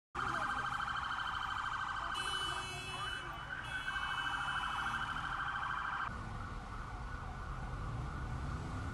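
Several emergency-vehicle sirens sounding together, one warbling fast. A higher-pitched siren tone joins about two seconds in, breaks off briefly, and drops out about six seconds in, leaving the steady siren over a low traffic rumble.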